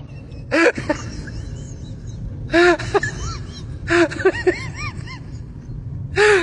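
A cat meowing: four short calls spaced a second or two apart, each rising and falling in pitch, over a steady low hum.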